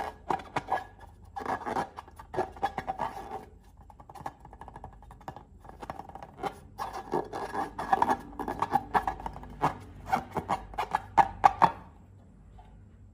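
Slime and rubber balloons being squeezed and worked by hand: sticky crackling and clicking with rubbery squeaks. It comes in bouts and stops about twelve seconds in.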